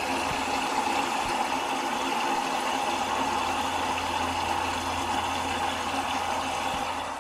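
Water spraying from a Hozelock pump-up pressure shower head into a stainless steel kettle, filling it: a steady rush of water that stops near the end.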